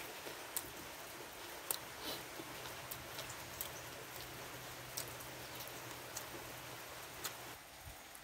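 Faint steady hiss of light rain, with scattered sharp ticks.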